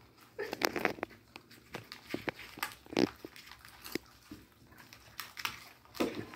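Young raccoons eating from a person's hands, with irregular chewing and smacking and the crinkling of the food packaging they are pulling at.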